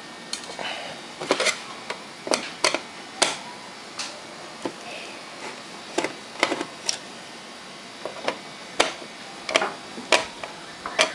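Screwdriver work on a flat-screen TV's power supply board and sheet-metal back chassis: irregular sharp clicks and knocks, about a dozen, as the board's screws are taken out.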